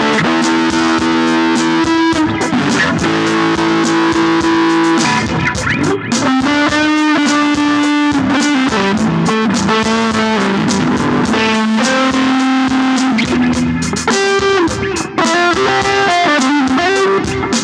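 Electric guitar, a Fender Stratocaster, played for a sound check: a chord rings out for several seconds, then a run of single notes and short phrases, some bending in pitch.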